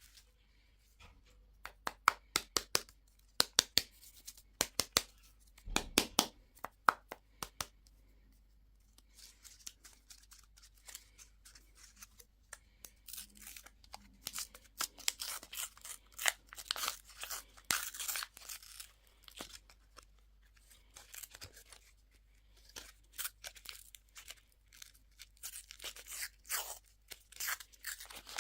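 Candy packaging being torn open and crinkled. It starts as a run of sharp separate crackles and clicks, then after a short pause turns into longer rustling tears.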